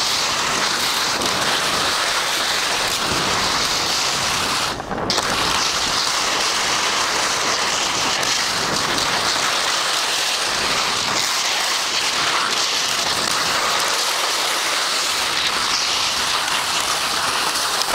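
Skis sliding over snow while skiing downhill, a steady loud hiss that dips briefly about five seconds in.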